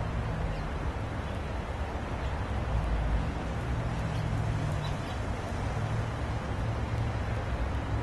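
Outdoor ambience: a steady low rumble under an even hiss, with a few faint, short, high bird chirps.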